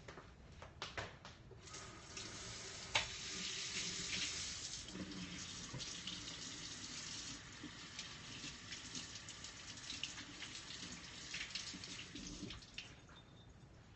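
Kitchen tap running into a sink, a steady rush of water that starts about two seconds in and is shut off near the end. A sharp knock sounds about three seconds in.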